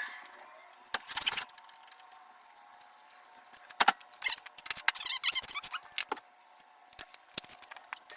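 Scattered clinks, knocks and jingling rattles of metal tools and parts being handled, with a brief rustling burst about a second in and a jangling cluster in the middle.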